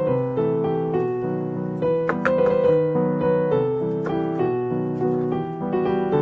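Background piano music: a light melody of short notes over held chords.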